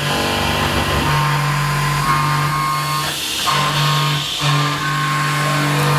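Carbide end mill cutting aluminium on a Tormach CNC mill: a loud, steady pitched cutting hum with a higher ringing tone above it, a noisy cut. It breaks off briefly twice in the second half.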